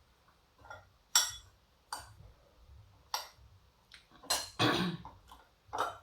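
Cutlery clinking against a plate while eating: about six sharp, separate clinks at irregular intervals.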